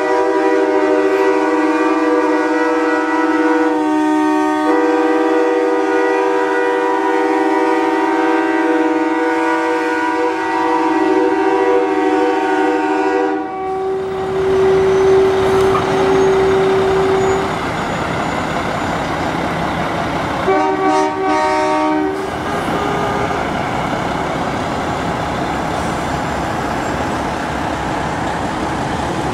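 Train horn on a semi truck, several chimes sounding together as a chord, blown in one long blast with a brief dip about four seconds in, cutting off about thirteen seconds in. Then diesel trucks are heard pulling away, with a single horn note held for a few seconds and another short chord blast of under two seconds a little past the twenty-second mark.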